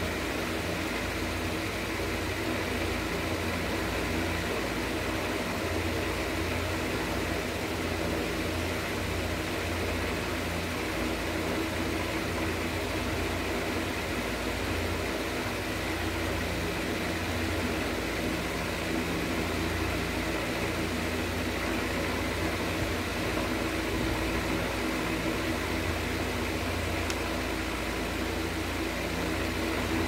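A steady mechanical hum with a hiss over it, carrying a few faint held tones.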